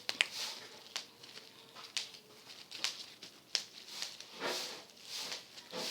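Bubble wrap being popped: sharp single pops at irregular intervals, about one a second, with softer rustling of the plastic in between.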